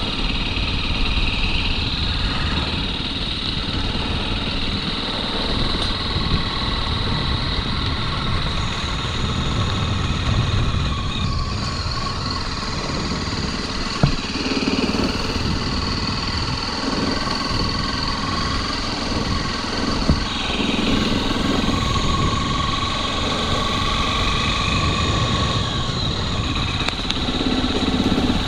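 Motorcycle engine running steadily at low speed over a dirt road, with road and wind noise. Two sharp knocks come about halfway through, a few seconds apart.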